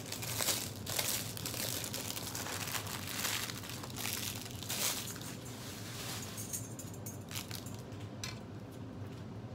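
Clear plastic wrapper of a honey bun crinkling as it is peeled off by hand: a dense run of crackles that thins out after about five seconds into a few scattered ticks.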